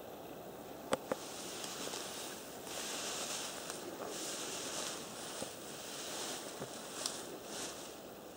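Faint outdoor ambience: a high, airy hiss that swells and fades in waves, with a few sharp clicks about a second in and again near the end.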